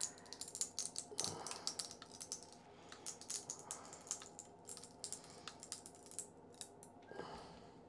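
Faint, irregular crackling clicks from a 3D-printed PLA cube with 10% rectilinear infill as a force-gauge probe is pressed down into it: the sparse infill cracking under the load.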